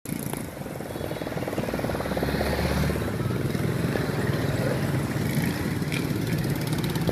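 A small engine running steadily with a rapid, even pulse, amid street noise.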